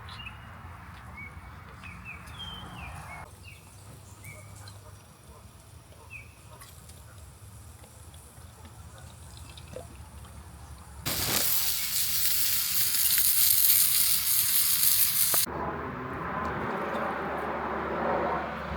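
Outdoor ambience in cut-together segments: a soft background with a few short high chirps, then a loud hissing rush that starts and stops abruptly and lasts about four seconds, then a softer steady rushing noise.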